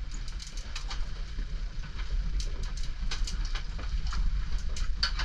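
Steady low rumble of a boat at sea with wind on the microphone, and irregular sharp clicks and ticks over it.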